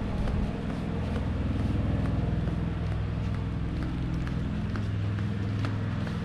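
Footsteps in sandals on a concrete walk, light ticks about twice a second, over a steady low hum.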